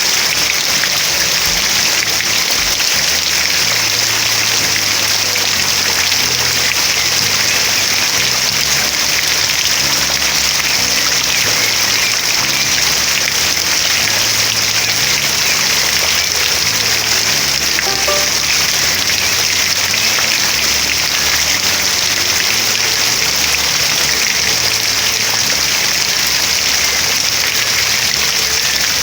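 Steady rain falling, an even hiss of many drops that holds constant throughout.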